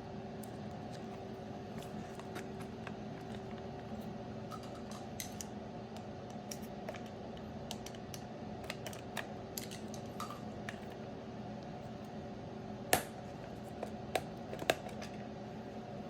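Light clicks, taps and rustles of a trading card booklet being handled and opened, with a sharper click about thirteen seconds in and two more soon after, over a steady electrical hum.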